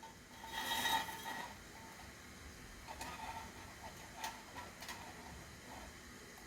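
Handling noises: a short rustle about half a second in, followed by a few light, sharp clicks and taps.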